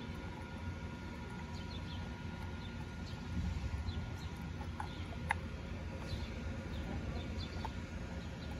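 Small clicks and handling noise as a plastic LCD display and its clamp are fitted onto an e-bike handlebar, with one sharp click about five seconds in. Behind it are a steady low rumble and faint, scattered bird chirps.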